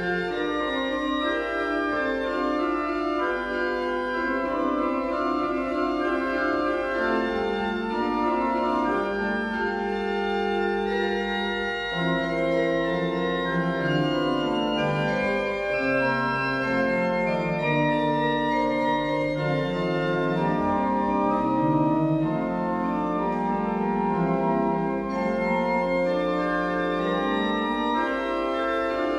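Church organ playing a slow piece of held chords, the lower notes stepping from one to the next every second or two.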